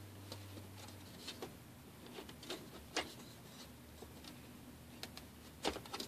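Metal mounting plate being twisted and lifted off the plastic housing of a Gentex 710CC smoke detector: a string of light clicks and scrapes, the sharpest about three seconds in and near the end.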